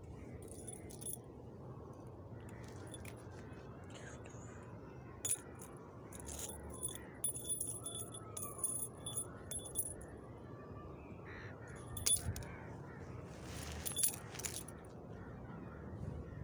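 Light metallic jingling and clinking, small pieces of metal knocking together and ringing, in several clusters over a low steady hum.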